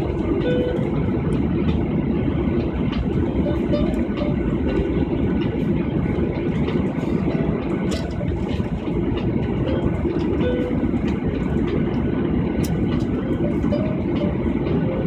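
Airliner engines and airframe rumble heard from inside the passenger cabin on the takeoff, a steady loud low noise with faint light rattles through it.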